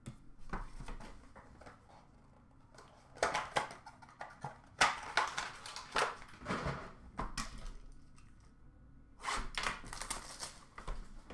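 Cardboard card box and its paper packaging being handled and opened on a glass counter: scattered rustles, scrapes and clicks in several short bouts with quiet gaps between.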